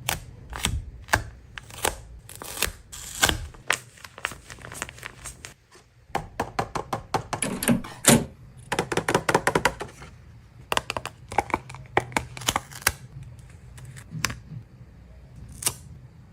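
Paper being handled: a run of irregular crisp clicks and crinkles, coming thicker in two spells.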